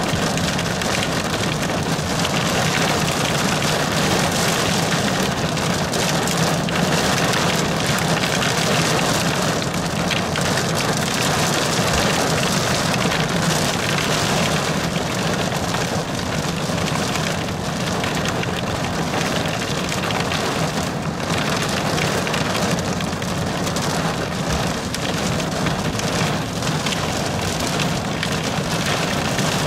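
Heavy thunderstorm rain pelting a car's windows and roof, heard from inside the car as a steady, dense patter.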